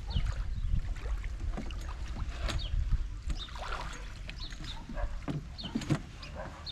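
A homemade boat built from halved plastic drums knocking and bumping as people settle in and paddle it on the water: scattered knocks over a low wind rumble on the microphone.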